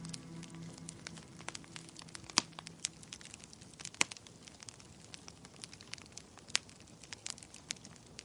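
Wood fire crackling in a fireplace, with irregular sharp pops and snaps over a faint hiss. Soft music with held notes fades out in the first two seconds or so.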